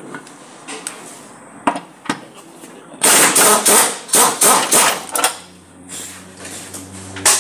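Impact wrench hammering on a lower control arm mounting bolt for about two seconds, starting about three seconds in, as the bolt is loosened for the arm's removal. A few single metal knocks come before it.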